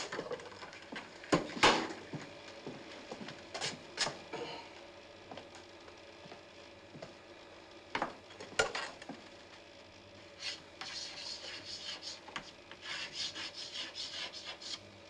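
A few scattered knocks and clicks, then chalk scratching on a blackboard as a word is written: a quick run of short scratchy strokes over the last four seconds or so.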